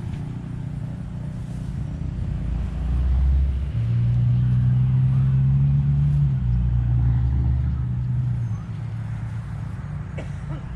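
A motor vehicle's engine running with a low, steady rumble. It swells for several seconds in the middle, then drops back.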